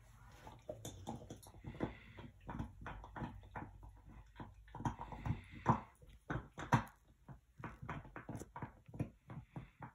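A dog chewing and gnawing on a chew held between its paws: a run of irregular short clicks and crunches.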